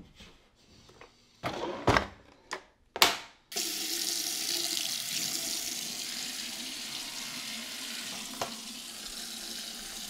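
A few brief knocks, then about three and a half seconds in a bathroom sink tap is turned on and runs steadily into the basin, with one short click near the end.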